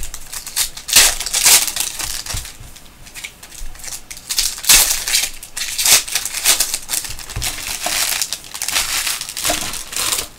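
Foil wrappers of trading card packs crinkling and crumpling in the hands as the packs are opened and handled, in irregular rustling bursts.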